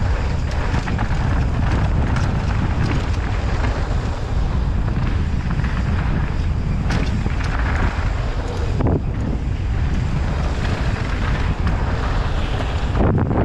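Wind buffeting a helmet-mounted camera's microphone as a mountain bike descends a dry dirt trail at speed, with the tyres rumbling over the ground. Sharp clatters from the bike rattling over rocks and bumps come every so often.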